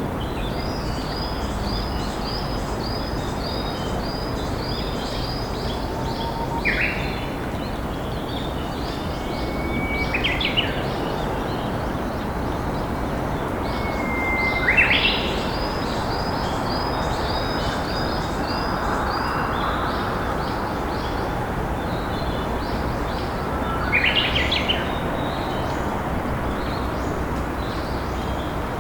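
A river flowing with a steady rush, and a Japanese bush warbler singing its hoo-hokekyo song four times, each a held whistle that breaks into a quick flourish. Another bird repeats a short high call about twice a second in two stretches.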